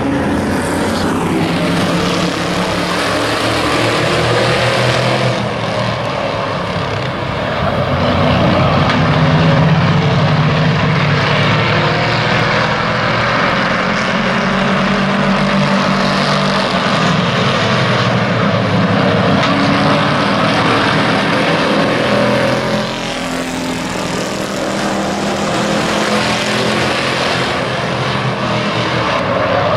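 A pack of hobby-class pickup race trucks racing at full throttle on an oval track from the green flag onward, their engines blending into one loud, continuous drone that rises and falls a little as the field comes around.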